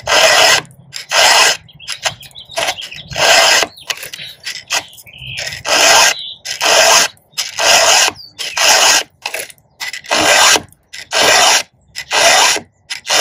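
Chainsaw file rasping on the cutters of a saw chain held in a vise, in steady hand strokes about one a second with short pauses between them.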